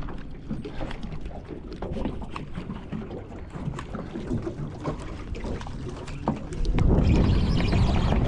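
Small boat on open water: water slapping against the hull with scattered small knocks and clicks, then a louder, steady rush of wind and water from about seven seconds in.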